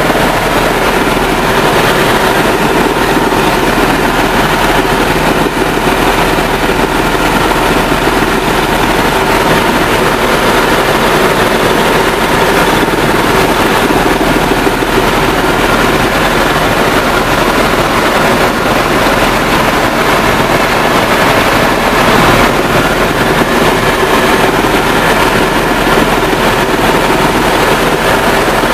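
Helicopter engine and rotors running in steady flight, heard from inside the cabin as a loud, even drone with a few steady tones in it.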